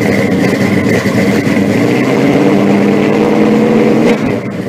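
Car engine running loudly with a steady, pulsing exhaust note, fading out near the end.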